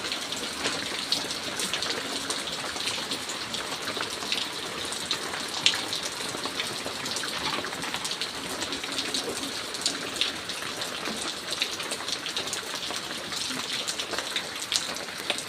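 Steady, heavy rain falling, a constant hiss dotted with the sharp ticks of individual drops striking surfaces.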